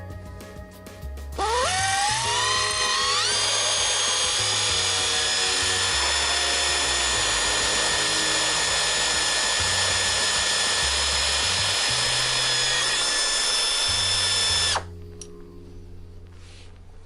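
Desoutter pneumatic drill running free. The whine rises as the motor spins up, then holds steady and high over an air hiss for about thirteen seconds before cutting off suddenly. Background music plays underneath.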